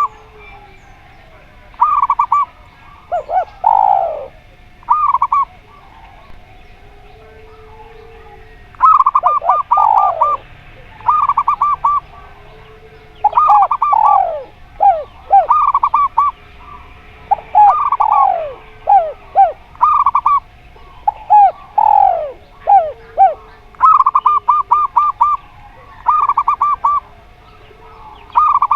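Zebra doves and spotted doves cooing in turn. Tight clusters of quick staccato notes alternate with falling coos, in bursts separated by short pauses.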